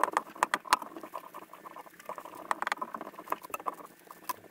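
Clothes iron spreading hot wax over the base of a snowscoot board: a scratchy rubbing with irregular light clicks and crackles.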